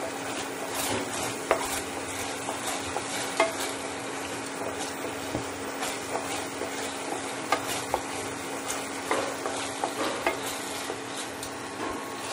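A spatula stirring and scraping a thick, sizzling tomato sauce around a stainless steel frying pan, with irregular clicks and scrapes against the pan. A steady low hum runs underneath.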